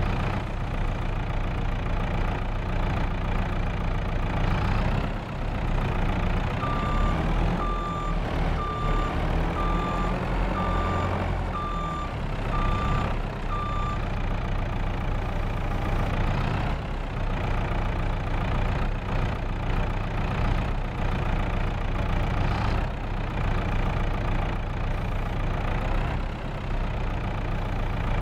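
Heavy diesel truck engine running steadily, with a reversing alarm beeping about once a second for some seven seconds, starting several seconds in.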